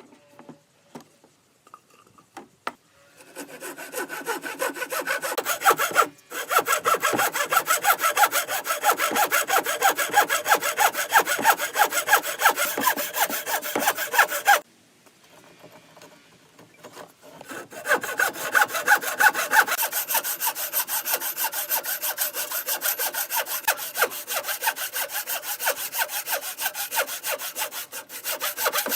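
Hand saw cutting through wood with fast, even back-and-forth strokes. The sawing starts a few seconds in, pauses about halfway through, then resumes. A few faint taps come before it.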